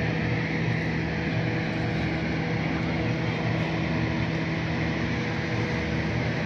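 Steady, unchanging engine drone with a constant low hum.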